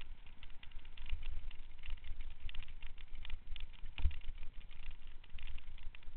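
Mountain bike rolling fast down a dirt trail: a low rumble with a steady crackle of tyre noise and rattles over the rough ground, and one sharper knock about four seconds in.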